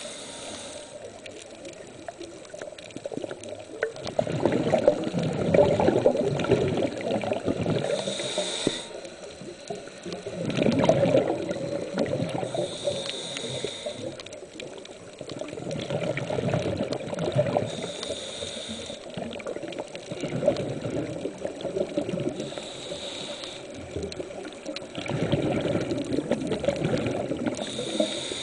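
Scuba regulator breathing recorded underwater: a short hiss of inhalation through the regulator roughly every five seconds, alternating with a longer rush of exhaled bubbles lasting two to three seconds.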